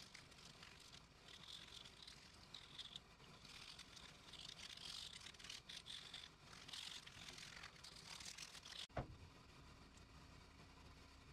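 Hand sanding: a folded sheet of sandpaper rubbed back and forth over the edges of a small drilled strap piece, faint irregular rasping strokes. About nine seconds in the rubbing stops with a single sharp knock, and a faint steady hum follows.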